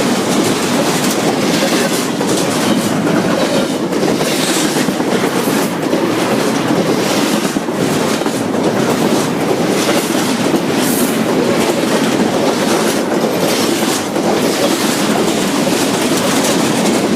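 Freight train cars rolling past: a steady rumble of steel wheels on rail with clickety-clack over the rail joints.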